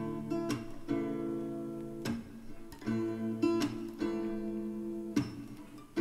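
Background music: acoustic guitar strumming chords, with a pause in the singing.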